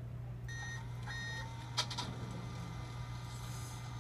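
Two short high electronic beeps about half a second apart, followed by a sharp click, over a steady low hum.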